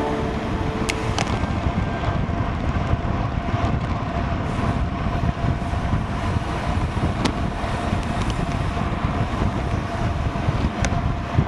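Wind rushing over the microphone of a camera on a road bike descending at 35–45 km/h, with steady tyre and road rumble. A few sharp ticks stand out, about a second in and again later on.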